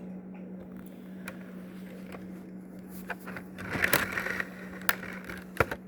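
Objects being handled on a table: a few sharp clicks and, about four seconds in, a brief scraping rustle, over a steady low hum.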